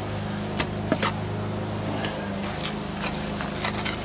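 A steel trowel scraping and tapping as mortar is worked into the joints between flagstone veneer pieces: a scatter of short scrapes and clicks, more of them in the second half. A steady low mechanical hum runs underneath.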